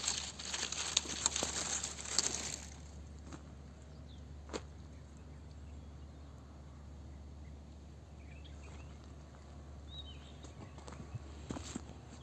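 Dry date-palm fronds rustling and crackling against the phone for about the first two and a half seconds, then quiet outdoor background with a single sharp click about four and a half seconds in.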